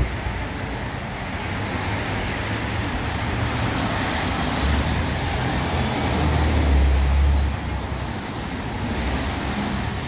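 Street traffic on a wet road: a steady hiss of tyres on wet pavement, with a passing vehicle's low engine rumble building to its loudest about two-thirds of the way through, then dropping away. A brief knock right at the start.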